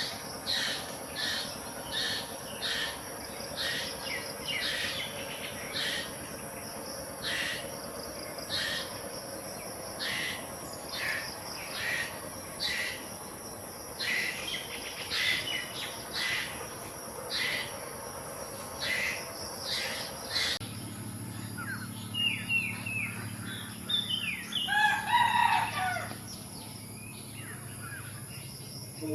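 Birds calling: a long run of short, sharp chirps about once or twice a second, then a louder call of several curving, pitch-sliding notes near the end.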